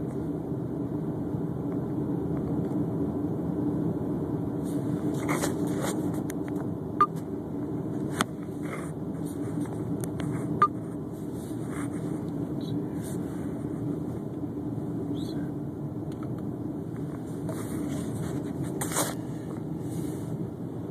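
Steady engine and tyre drone inside a car's cabin at highway speed, with three sharp clicks in the middle.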